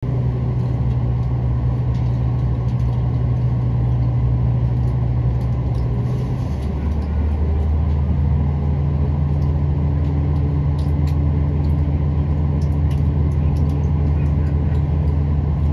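Southern Class 171 Turbostar diesel multiple unit pulling away, heard from inside the carriage: the underfloor diesel engine drones steadily under power. About six and a half seconds in, its note drops to a lower pitch and then holds steady.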